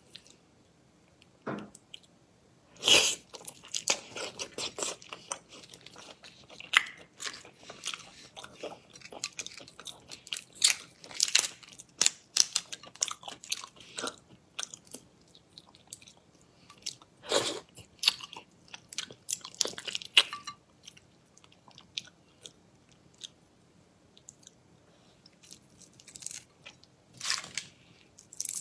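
Close-miked eating of shellfish: chewing and crunching, with the crackle of shells being cracked and peeled by hand, in irregular bursts with quieter pauses in between.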